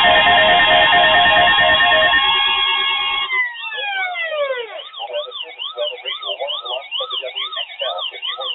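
Weather alert radio alarm tones: a steady, loud electronic tone with a pulsing lower beep gives way about three seconds in to falling glides and then a fast siren-like warble rising and falling about three times a second, sounding for a weekly test alert.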